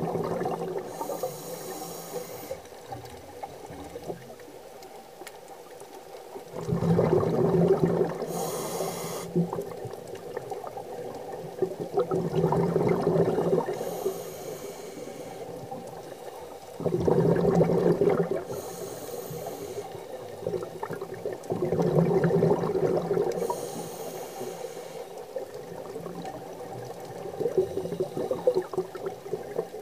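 Scuba diver breathing through a regulator underwater, heard through the camera housing: bubbling bursts with a short hiss, repeating about every five seconds.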